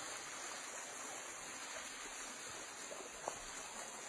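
Small waterfall running down a rock face into a shallow stream: a steady rush of water.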